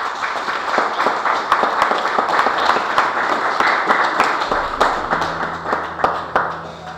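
Audience clapping, starting right as the poem ends and thinning out near the end.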